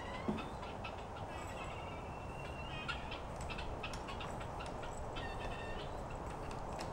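Guinea fowl calling, quick runs of short repeated notes over a steady background noise.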